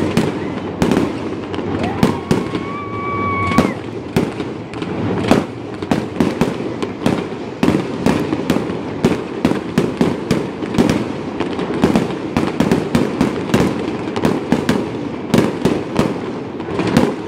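Aerial fireworks going off in a rapid, continuous string of bangs and crackles. A whistle rises and holds for a second or two from about two seconds in.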